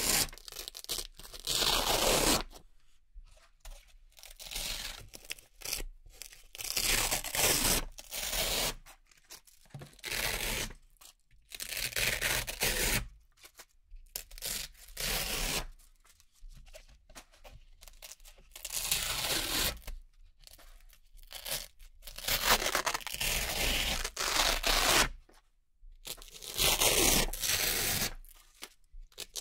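Velcro-backed discs being peeled one at a time off a board of Velcro strips: hook-and-loop tearing apart about a dozen times, each rip lasting a second or two, with short pauses between.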